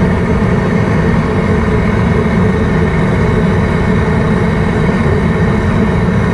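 Propane jet burner of a seafood-boil cooker roaring steadily under a large stockpot of water being brought to a boil.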